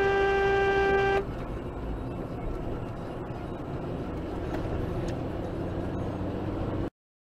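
A car horn held on one steady note, stopping about a second in. Then the steady road noise of a car driving at speed, which cuts off abruptly near the end.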